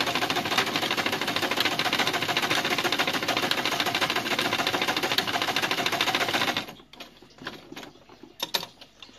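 Electric sewing machine stitching at full speed through layers of fabric, a fast, even clatter that stops abruptly about two-thirds of the way in. After it stops, a few faint clicks and rustles as the fabric is handled.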